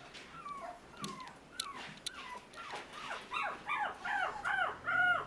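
Toy poodle puppy whining: a string of short, high cries that each drop in pitch, growing louder and quicker from about halfway through.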